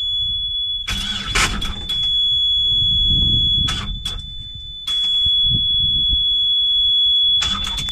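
Engine control panel alarm buzzer on a Yanmar marine diesel sounding a steady high-pitched tone while the engine fails to start, with irregular low rumbling and a few sharp knocks underneath.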